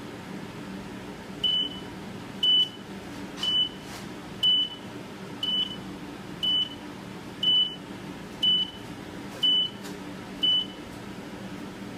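Digital countdown timer beeping at zero: ten short high beeps, one a second, signalling that the timed flame exposure is over.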